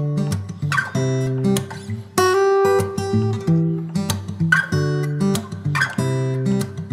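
Background music: an acoustic guitar strumming and plucking chords at a steady pace.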